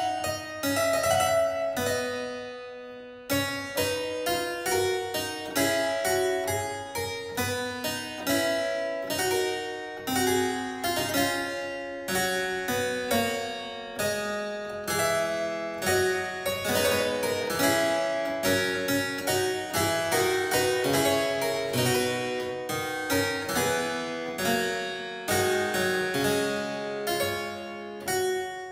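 Solo harpsichord playing a flowing piece, a quick succession of plucked notes. One phrase dies away and there is a brief pause about three seconds in before the playing picks up again.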